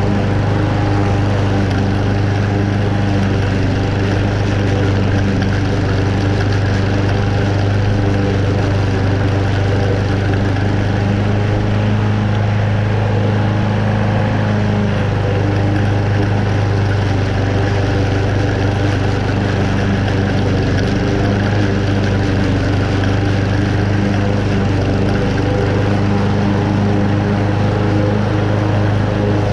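Toro Super Recycler walk-behind mower's Honda engine running steadily with a strong low hum while the mower cuts moderately wet, tall grass.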